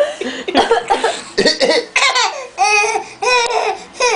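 Laughter in short repeated bursts, a baby's among it, mixed with the baby's short fake coughs.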